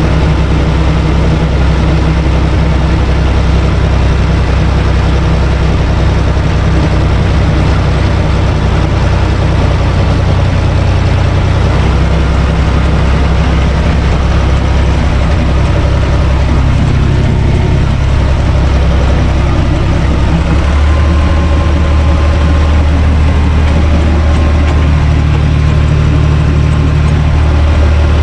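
UTB Universal 445 DT tractor's four-cylinder diesel engine running steadily, heard loud from the driver's seat while the tractor works a rotary tiller through garden soil. The engine note shifts in pitch about twelve seconds in and again about twenty seconds in.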